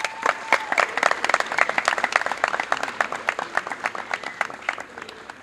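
Crowd applauding: dense clapping from many hands that thins out and fades toward the end.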